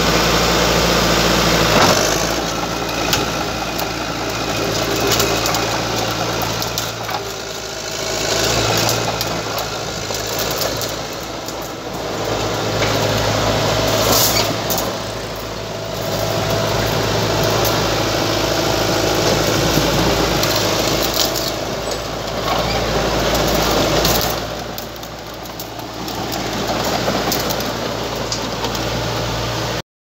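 Komatsu D31P-18 crawler dozer's diesel engine running as the machine is worked, its sound swelling and easing several times, with a few sharp knocks along the way.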